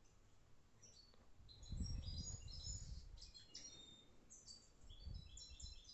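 Small birds chirping, a quick run of short high chirps, with a low muffled rumble about two seconds in and a shorter one near the end.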